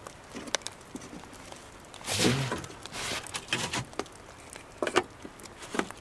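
Irregular rustles, scuffs and knocks of handling and walking: a plastic sap canister picked up at a birch tree, then footsteps through wet snow and forest litter, the loudest scuff a little over two seconds in.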